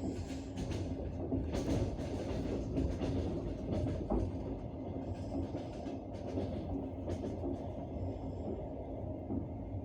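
Passenger train running along the line, heard from inside the coach: a steady rolling rumble of wheels on rails with irregular sharp clicks over rail joints, and a faint high ringing from the rails near the start and again near the end.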